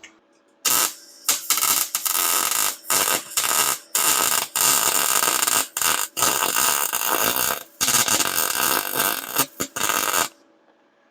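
MIG welder arc crackling and spitting on thin metal, laid down as a string of short bursts with brief stops between, from under a second in until near the end. The spitting is from a low setting (about 15.5 volts, 78 inches per minute wire); the welder thinks it needs turning up a little.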